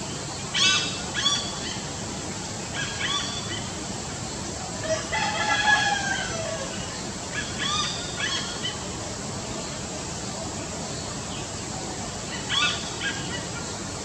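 Hornbill calling in several short bursts, with a rooster crowing once about five seconds in.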